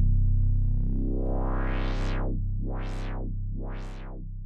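Synthesizer music: a held low drone chord with a bright filter sweep that rises slowly, then opens and closes about once a second, fading out near the end.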